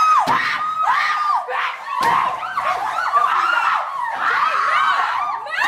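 Several women screaming in high, overlapping shrieks, one after another, with a few sharp knocks among them.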